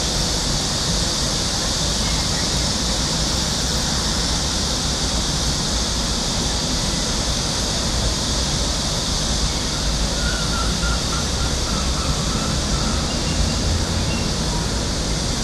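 Steady outdoor city ambience from high above the streets: an unbroken hiss with a low rumble underneath, with no firecracker pops.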